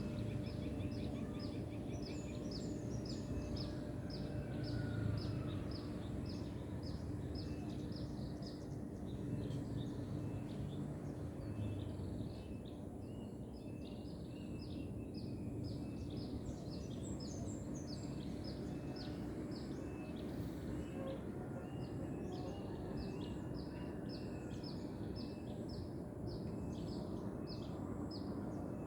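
Small birds chirping: a long run of short, high chirps, a few a second, with brief pauses, over a steady low hum.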